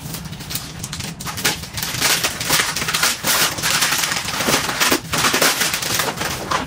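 Cardboard and paper gift packaging rustling and crackling as a box is opened and its insert pulled out, a dense run of irregular crinkles and scrapes.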